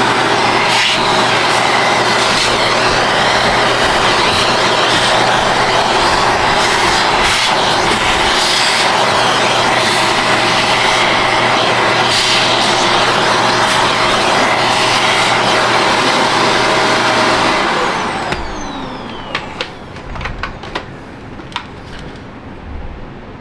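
Vacuum cleaner running steadily with a hum and the crackle of debris being sucked up. Near the end it is switched off and the motor winds down in a falling whine, followed by a few light clicks and knocks.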